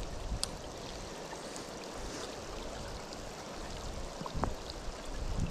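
Steady rush of flowing stream water, with a couple of faint clicks: one just after the start and one about four and a half seconds in.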